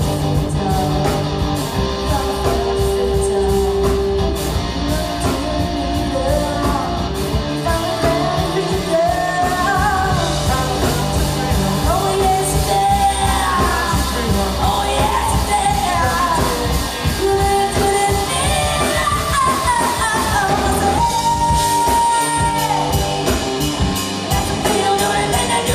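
Live power rock trio playing a song: electric guitar, bass guitar and drum kit, with a woman singing a melodic line over it.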